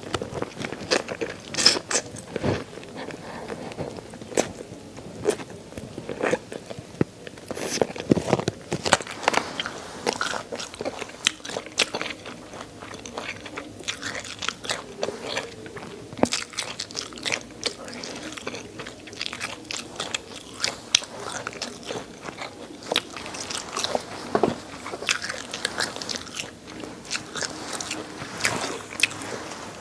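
Close-miked chewing of chicken neck: the small bones crunch and crack between the teeth in dense, irregular clicks, with wet mouth sounds in between.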